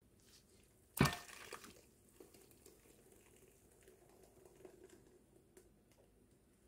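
One sharp knock about a second in, then the faint, soft sound of thick blended onion, pear and garlic purée being poured from a blender jar into a mesh straining bag over a steel bowl.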